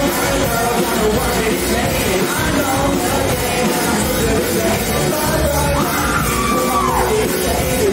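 Rock band playing live at full volume: electric guitar and bass guitar, with a male singer's voice over them.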